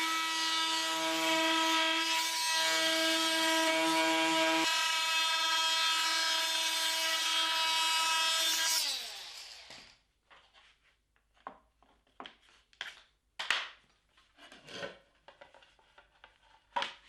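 Bosch GOP 250 CE oscillating multi-tool with a segment saw blade cutting a wooden door frame to length, a steady high buzz. About nine seconds in the motor winds down and stops, followed by a few scattered short knocks and scrapes.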